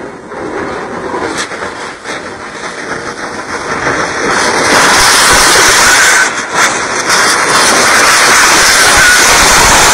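Gas blowing out of an oil wellhead under high pressure in an uncontrolled blowout: a loud rushing hiss that swells about four to five seconds in and then holds at full strength, with a thin steady whistle above it in the second half.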